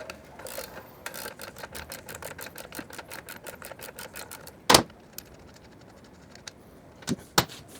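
Socket ratchet clicking rapidly, about eight clicks a second, as the swing-arm pivot nut is backed off, then a sharp knock of metal about halfway through and two more near the end.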